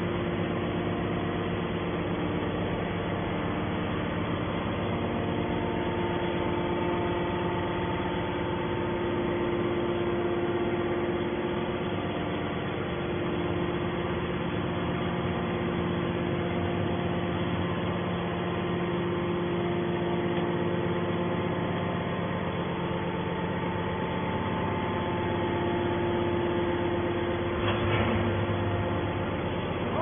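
Hydraulic scrap metal baler's pump unit running: a steady mechanical hum with several held tones, and a short knock near the end.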